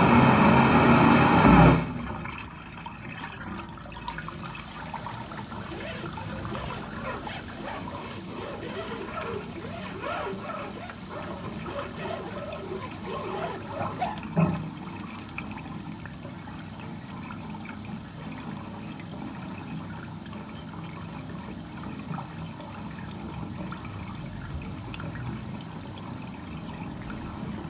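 A loud machine noise cuts off abruptly about two seconds in, leaving water running and trickling steadily through a drain.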